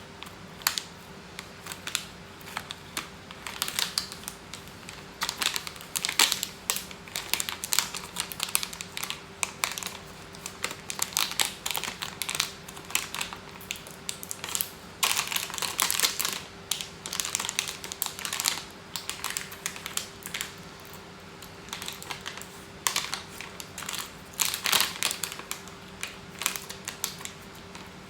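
Irregular clicking and crinkling as packaging of cat treats or food is handled, coming in uneven clusters, over a steady faint hum.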